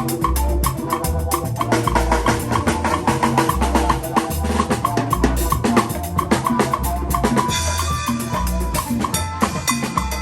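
A live band playing an upbeat instrumental groove: drum kit with snare and bass drum, a bass line and percussion keeping a steady beat. About three quarters of the way through, sustained higher notes join in.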